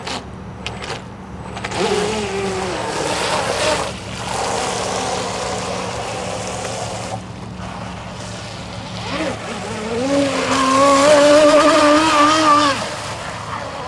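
Segad brushless RC catamaran speed boat running fast across the water: the brushless motor whines over the hiss of the hull and spray. The whine comes and goes, loudest and steadiest for a few seconds near the end before it cuts off suddenly.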